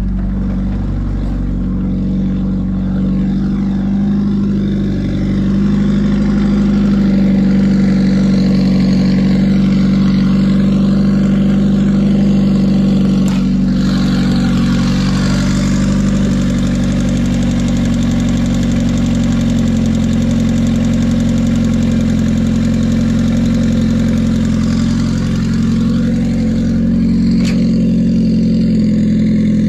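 Honda Civic four-cylinder engine idling steadily, with a valve tick that the owner hopes means only that the valves need adjusting.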